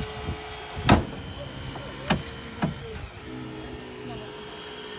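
Hydraulic rescue cutter (jaws of life) biting into a car's door pillar: three sharp cracks of metal giving way, about one, two and two and a half seconds in, the first the loudest, over a steady mechanical hum.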